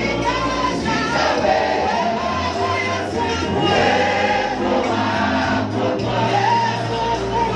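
A choir singing a gospel song over instrumental backing, with held bass notes and occasional drum hits.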